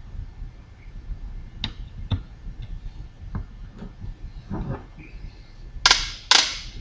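Small plastic clicks and handling noises as a USB charging cable is fitted to a rechargeable LED work light, a handful of separate ticks, then two louder, short rustling scrapes near the end.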